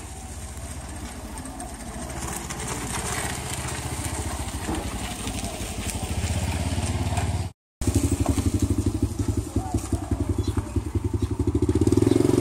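Small motorbike engines running in the lane, a rapid, even putter that grows louder over the first seven seconds. After a short break about two-thirds of the way in, a motorbike engine putters louder and closer.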